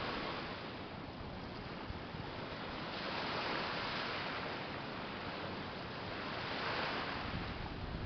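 Small waves washing up onto a sandy beach: a steady hiss of surf that swells and ebbs, louder about three seconds in and again near the end.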